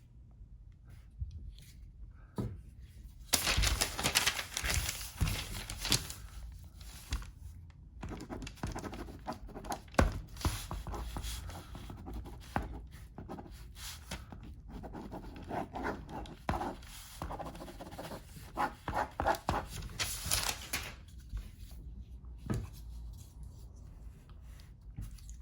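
Close-up handling noises of small parts being worked on: long stretches of rustling and scraping, with scattered sharp clicks and knocks.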